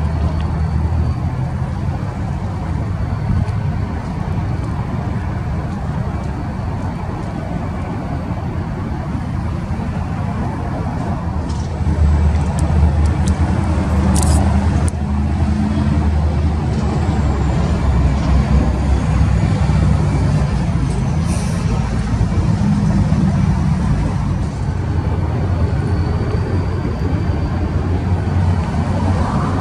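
BNSF diesel freight locomotive running as it hauls boxcars slowly past: a steady low engine drone that grows louder about twelve seconds in. Two brief sharp high sounds come through in the middle.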